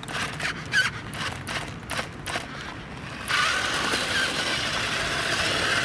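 Battery-powered toy RC stunt car (Virhuck Stunt X): scattered clicks and knocks as it comes down the concrete ramp. About three seconds in, a steady whirring of its electric motor, gears and tyres starts as it drives off fast over asphalt.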